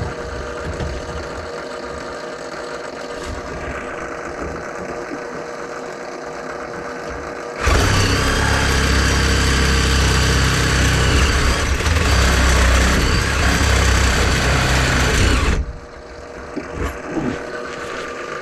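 Handheld cordless drain-cleaning machine working its cable into a kitchen drain line clogged with grease: a steady running sound at first, then a much louder spinning run of about eight seconds that cuts off suddenly, followed by lighter mechanical clicks.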